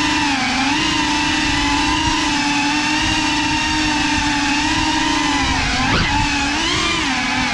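The brushless motors and propellers of a GEPRC Cinelog35 ducted cinewhoop FPV drone in flight, a steady loud whine whose pitch dips and rises with the throttle. About six seconds in the pitch shoots up sharply and falls back, then dips once more near the end.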